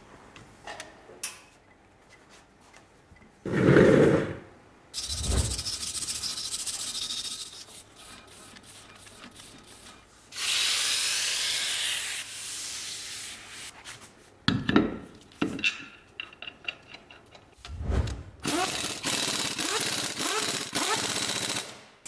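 Wire brush scrubbing the brake hub in stretches of rasping strokes, and a steady hiss of aerosol cleaning spray lasting about two seconds in the middle. There is a louder clatter of metal parts about four seconds in.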